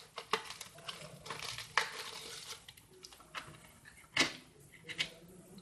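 Wooden pastel pencils being handled, with a series of sharp clicks as they knock against each other and short scratchy rustles in between.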